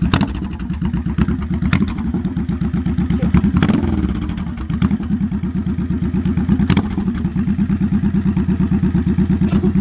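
V-twin cruiser motorcycle engine idling with an even, pulsing beat, swelling briefly about three and a half seconds in.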